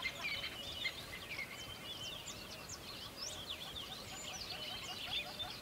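Many small birds chirping and twittering at once, a dense chorus of short high calls overlapping throughout.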